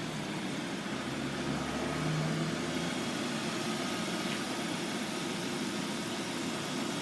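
A car engine running steadily at idle.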